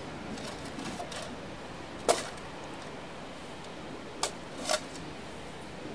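Shovel blade being driven into hard, dry, stony ground by hand, a few separate chopping strikes with the loudest about two seconds in and two more close together near the end, over a steady faint hiss.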